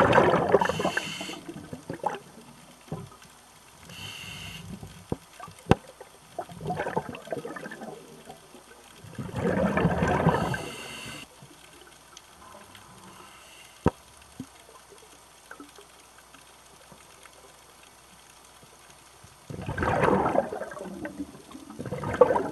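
Scuba diver breathing through a regulator underwater: three bubbling exhalations about ten seconds apart, each lasting a couple of seconds, with hissing inhalations after them. A few sharp clicks in between.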